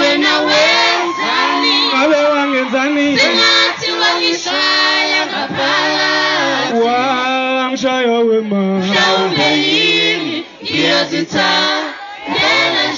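Live group singing through a PA, male and female voices together, holding long notes with short breaks between phrases.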